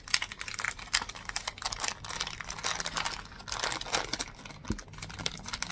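Clear plastic packaging bag crinkling as it is handled and opened by hand: a dense, uneven run of quick crackles.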